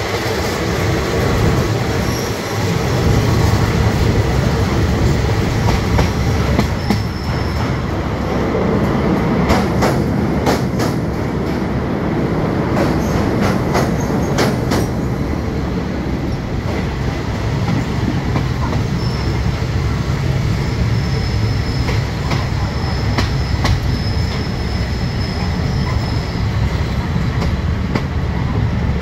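Passenger train's steel wheels clattering on the rails under a steady running rumble, heard from an open carriage window. A run of sharp clacks comes about a third of the way in as the wheels cross rail joints and crossing points, and a thin high wheel squeal comes and goes in the second half.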